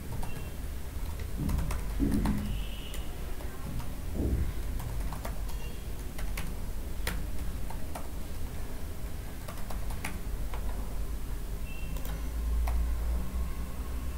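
Typing on a computer keyboard: irregular runs of keystrokes over a low, steady hum.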